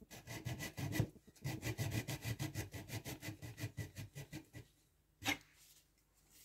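Fine-toothed hand saw cutting through the monkey puzzle wood spigot that holds the vase to the lathe chuck, parting the vase off. It makes quick strokes of about five a second for four and a half seconds, then a single sharp knock about five seconds in.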